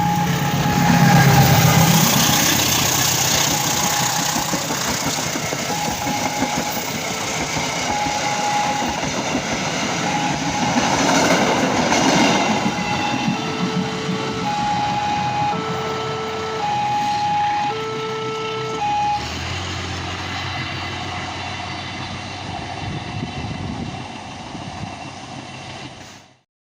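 A passenger train running by, its rumble swelling and easing, with a repeating electronic beep that turns into an alternating two-tone pattern partway through. A low steady hum joins later, and the sound cuts off just before the end.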